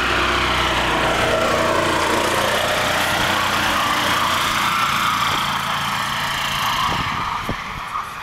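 Small gasoline engine of a Club Car XRT900 utility cart running as it drives through deep snow, its pitch rising and falling. It grows quieter near the end as the cart moves away.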